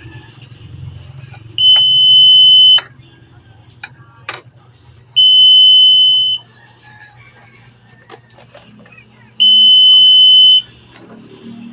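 Buzzer of a motion-detector burglar alarm circuit sounding a loud, steady, high-pitched beep three times, each lasting just over a second, about every four seconds. Faint clicks fall between the beeps.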